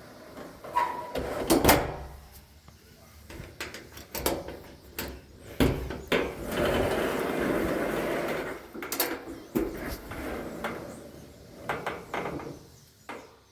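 A door fitted with a Yale 2000 series door closer being opened and let swing shut, with a series of knocks and latch clicks as it slams closed; the loudest knock comes about a second and a half in.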